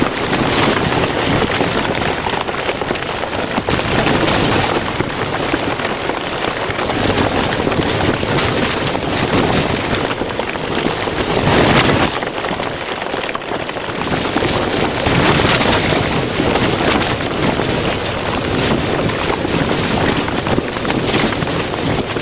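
Rain and wind beating on the fabric fly of a hanging portaledge tent, a dense steady noise that swells in gusts several times.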